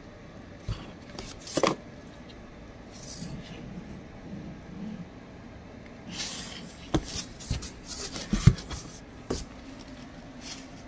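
A parcel's packaging and contents being handled and unpacked: brief rustles with scattered clicks and knocks, the loudest knock about eight and a half seconds in.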